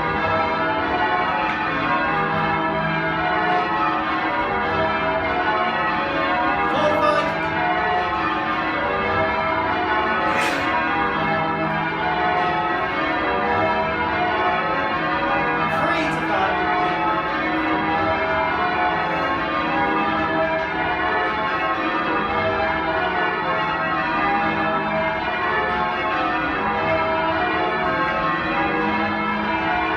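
Change ringing on a ring of ten church bells with a 17 cwt tenor in E, the bells striking one after another in a continuous, even pattern. A few brief sharp noises sound over the bells.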